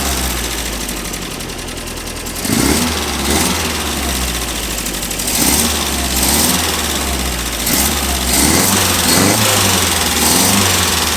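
1964 Triumph TR4's four-cylinder engine running on its dual Stromberg CD175 carburettors during tuning, its speed swelling up and settling back a few times.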